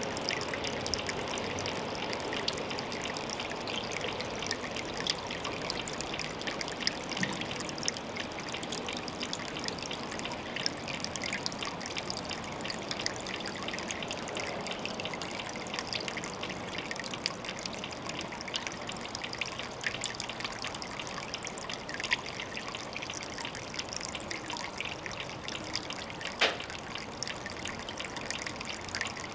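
Water trickling steadily at a pond, a continuous splashing patter with many small drips. A single sharper tick stands out near the end.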